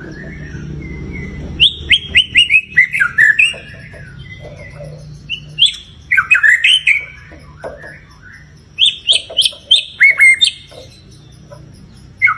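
White-rumped shama (murai batu) singing: three loud phrases of rapid, sharp down-slurred notes with quieter notes between, used as a lure song to provoke another shama into singing. A low steady hum runs underneath.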